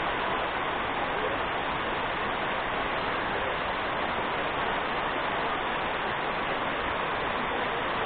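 Waterfall cascading down over rock: a steady, even rush of falling water.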